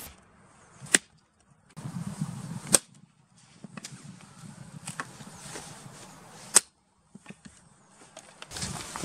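Dry sticks being snapped by hand: four sharp cracks, with the rustle and clatter of twigs being gathered into a pile between them.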